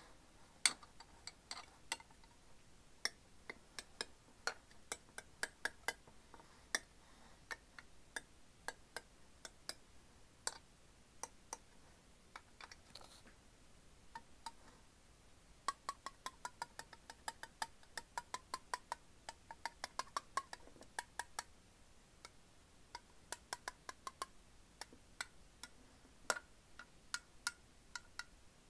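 A 100-yen coin tapping on a Sakuma Drops metal tin: sharp metallic clicks in irregular runs. About halfway through comes a quick run of taps with a faint ring from the tin.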